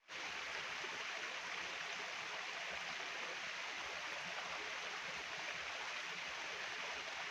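Steady rushing of a flowing stream, an even hiss of water with no breaks.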